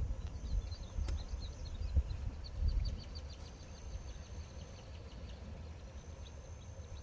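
Birds chirping in quick runs of short, high notes, over wind rumbling on the microphone, with a thin steady high whine that comes and goes and one sharp click about a second in.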